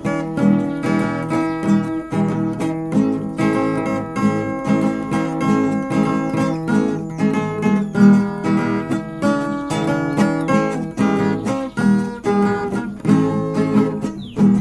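Instrumental solo on acoustic plucked strings, a melody picked over a strummed guitar accompaniment, in a break between sung verses of a sertanejo moda.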